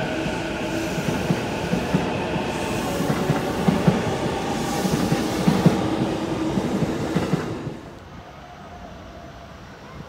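JR Yokohama Line E233-series electric train running close past a platform: a loud rumble with a steady motor whine and repeated clicks of the wheels over rail joints. About three-quarters of the way through the sound drops abruptly to a much quieter, distant train rumble.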